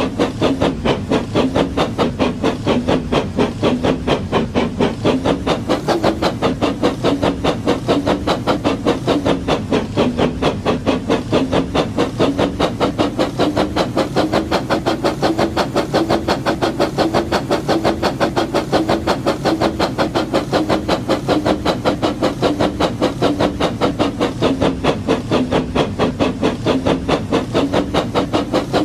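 Battery-powered toy brick train running, a steady motor drone with a rapid, even clatter several times a second.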